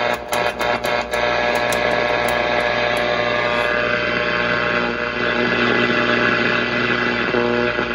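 Zenith Trans-Oceanic H500 tube radio's speaker giving out hum, steady whistling tones and static instead of a station, with a quick run of crackles in the first second of the kind a dirty band switch makes. After about four seconds the static becomes a stronger hiss.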